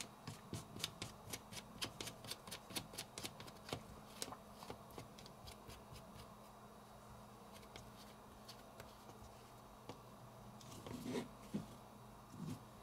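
Light, rapid clicking, about five clicks a second and thinning out after four seconds or so, as the drag nut is screwed down by hand onto a Daiwa Steez SV TWS baitcasting reel's main shaft; a little handling rustle near the end.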